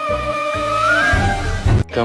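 Background music: a held melody line that slides up in pitch about a second in, over a bass line, cutting off just before the end.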